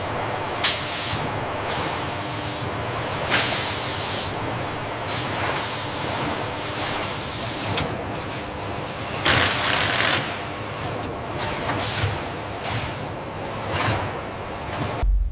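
Assembly-line machinery running steadily, with repeated sharp hisses of compressed air being released. The longest hiss comes about nine seconds in, and the sound cuts off just before the end.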